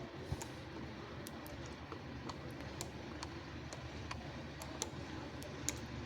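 Irregular light clicks and taps, a dozen or so spread unevenly, over a steady low background hum.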